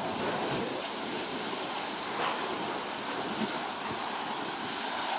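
Steady rushing hiss of a firefighting hollow-jet branch nozzle spraying water onto a gas fire, mixed with the noise of the flames as the fire is knocked down.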